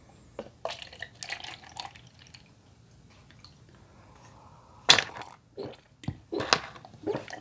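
A Coolpis fruit drink is poured from a carton into a plastic cup with soft splashing, then drunk in gulps. Several loud, sharp swallows come in the last few seconds.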